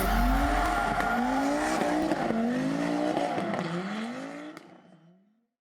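Rally car engine accelerating hard up through the gears, its pitch climbing and dropping back at each of about four gear changes, then fading out.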